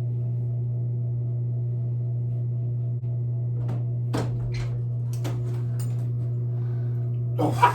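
A steady low hum with overtones, running at an even level, with a few faint clicks in the middle and a burst of voice breaking in near the end.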